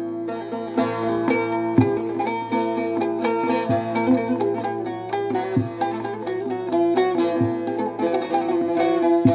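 Bağlama (Turkish long-necked saz) played solo: a quick plucked melody over steadily ringing drone strings, an instrumental passage of a Turkish folk song.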